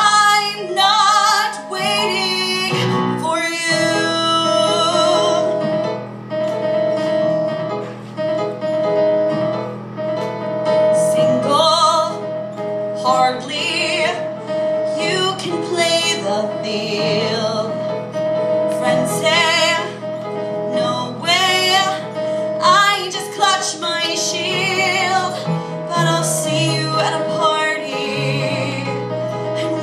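A woman singing a cabaret-style song with vibrato, accompanied by a Korg Triton keyboard playing sustained chords.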